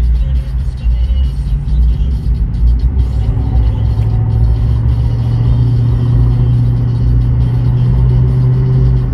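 Pickup truck's engine and exhaust heard from inside the cab while driving: a loud low drone that settles into a steady note about three and a half seconds in.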